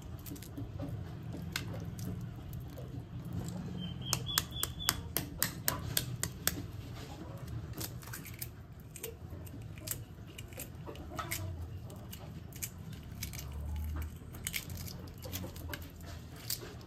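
Hard-boiled egg being peeled by hand: a run of small crackling clicks as bits of shell crack and come away, thickest from about four to six and a half seconds in.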